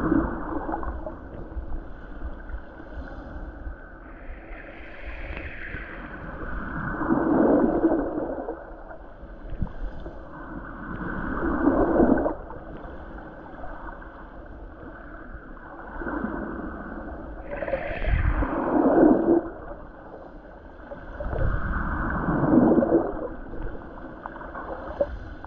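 Water heard from under the surface: a muffled gurgling and sloshing that swells and fades in several slow surges, a few seconds apart.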